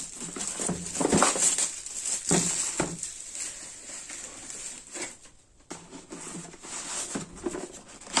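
Packaging being handled and opened by hand: irregular rustling and crinkling with sharp clicks and knocks, busiest in the first few seconds, with a brief lull just past the middle.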